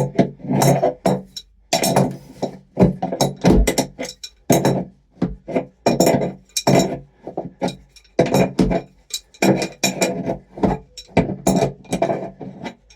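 Music playing, with sharp percussive hits a few times a second.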